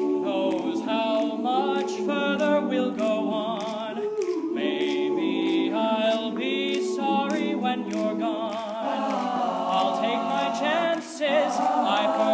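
High-school male a cappella group singing in close harmony, several voices holding wavering notes and moving between chords, with no instruments.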